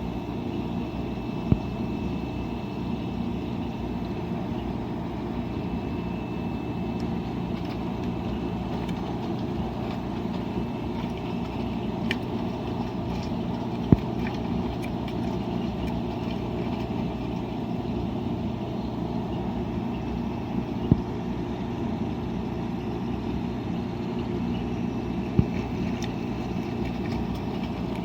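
Washing machine running: a steady mechanical drone with a few short, sharp clicks, the loudest about halfway through.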